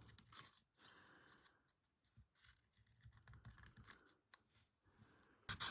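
Craft knife cutting and scraping into hard wood in short, faint strokes as a notch is whittled out, with a louder sharp sound near the end.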